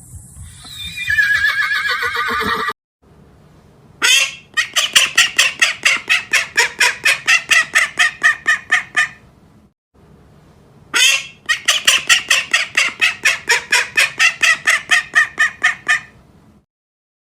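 A horse's whinny tailing off at the start, then a farm bird calling in two long runs of rapid squawks, about five a second, each run opening with a sharp cry.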